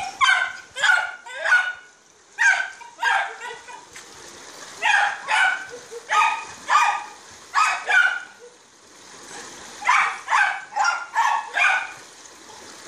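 A dog barking over and over in runs of two to six short barks, with a pause of about a second and a half after the middle.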